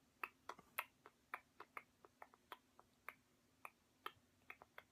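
Faint, irregular sharp clicks or taps, about two or three a second, over a low steady hum.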